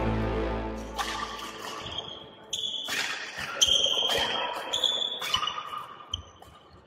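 Background music fading out in the first two seconds, then a badminton rally: sharp racket hits on the shuttlecock every second or so, mixed with short high squeaks of players' shoes on the court floor.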